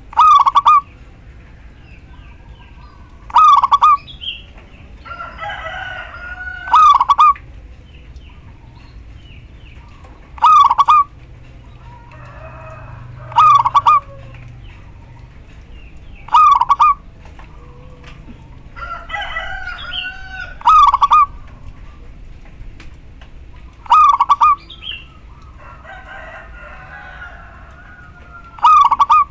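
Female zebra dove (perkutut) calling: nine short, loud calls repeated about every three seconds. Fainter, longer, wavering bird calls come in between them.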